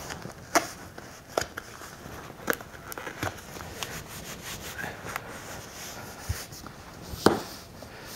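Hands rubbing and pressing down the self-adhesive flap of a cardboard shipping box to seal it, with scattered light taps of the cardboard. A louder knock comes near the end as the box is handled.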